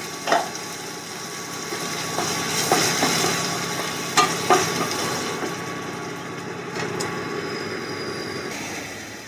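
Ground tomato and onions sizzling in hot oil in a stainless steel kadai, with a wooden spatula stirring and knocking against the pan a few times. The sizzle fades slightly toward the end.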